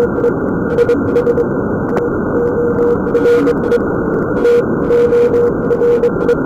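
Morse code (CW) signal on the 20-metre amateur band, received by an RTL-SDR dongle with a NooElec upconverter: a mid-pitched beeping tone keyed on and off in dots and dashes over a bed of shortwave static hiss and crackle.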